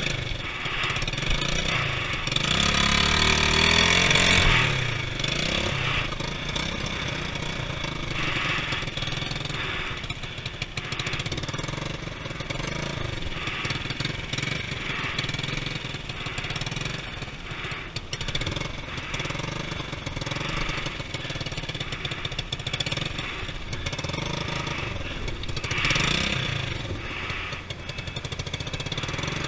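Motorcycle engine running, revved hard with rising pitch about two seconds in, then kept running unevenly, with another brief rev near the end.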